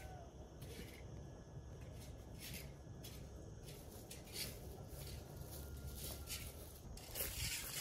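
Faint outdoor ambience: an irregular soft rustling over a low rumble, with a louder rattling stretch near the end.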